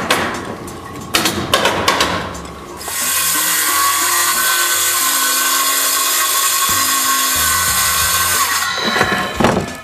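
A few sharp knocks, then a power tool running steadily for about six seconds, starting and stopping abruptly.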